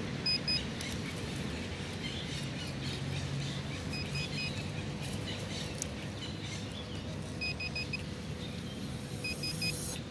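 Handheld metal-detecting pinpointer beeping in short bursts of two or three high beeps as it is pushed into a dug hole: the signal that a metal target, here buried coins, lies right there. Bursts come at the start, about seven seconds in and again near the end.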